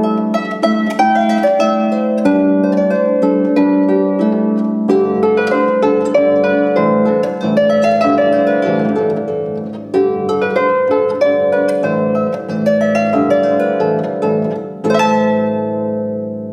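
Harp played in a lively, rhythmic folk-dance style: a quick, steady run of plucked notes over bass notes that join about five seconds in, with a strong accented stroke near the end before the music rings away.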